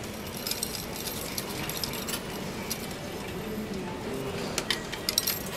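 Shinkansen ticket vending machine's cash mechanism working as money is fed in for the fare. It runs with light clicks, then a cluster of sharper coin clinks about five seconds in.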